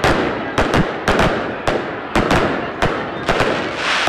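Fireworks display: aerial shells bursting in a quick, uneven run of sharp bangs, about three a second, over a continuous noisy wash of crackle.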